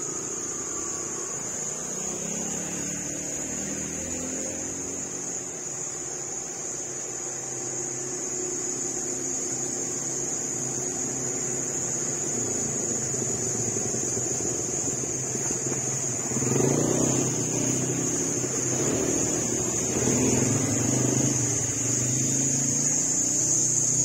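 Small engines of motorbikes and a quad bike (ATV) running as they pass along the road, growing louder from the middle onward, with a steady high-pitched whine throughout.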